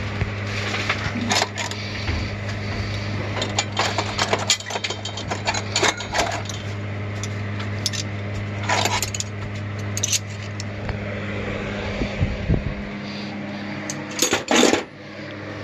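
Metal hand tools and hardware clinking and clattering as they are handled and dropped together, with a louder clatter near the end, over a steady low hum.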